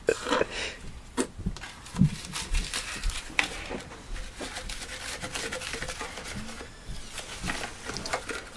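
Handling of plastic Slurpee cups and straws: the straw worked up and down in a cup of slush, with scattered short clicks, rustles and a few soft knocks.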